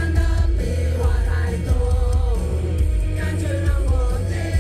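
Live pop performance: a male singer on a handheld microphone over a backing track with a heavy bass beat.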